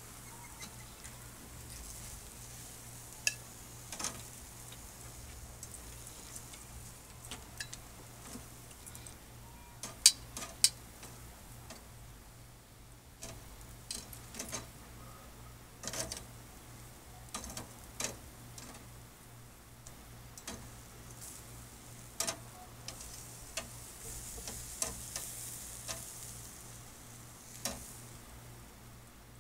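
Metal tongs clicking and scraping against a wire-mesh grill grate and a plate in short, irregular clinks as grilled food is lifted off, over a faint sizzle from the hot grill.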